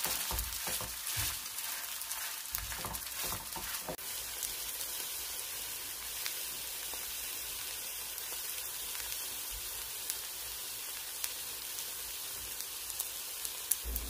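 Kimchi pancake batter sizzling steadily in hot oil in a nonstick frying pan, with a few knocks and scrapes in the first few seconds as a wooden spatula works under the pancake.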